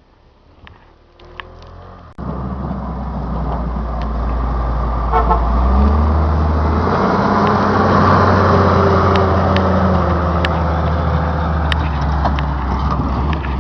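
A snowplow truck's engine and road noise close by, coming in abruptly about two seconds in and swelling to its loudest around the middle as it passes, then staying loud.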